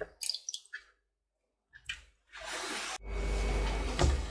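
Water running from a tap, an even hiss that starts about two seconds in after a near-silent stretch.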